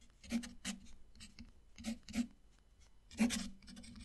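Steel fountain pen nib scratching across textured watercolour paper in a run of short strokes as a signature is written, the longest and loudest stroke about three seconds in.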